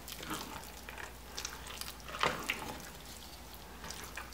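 Wooden spatula stirring thick, sticky sweet pongal of mashed rice, jaggery syrup and ghee in a pressure cooker pot. It makes irregular wet squelches and scrapes against the pot, with a louder scrape about two seconds in.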